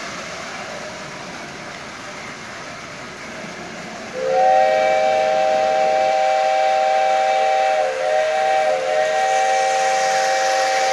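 Toy electric train whistle blowing a steady chord of several tones for about seven seconds, starting about four seconds in, with a brief break near the middle. Before it, the low running noise of a model train on tinplate track.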